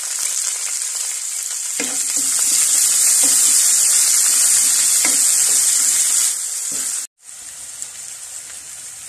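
Sliced onions sizzling in hot oil in a metal kadai while a wooden spatula stirs them, with a few knocks of the spatula against the pan. The sizzle grows louder about two seconds in, cuts out for a moment near the end, then comes back softer.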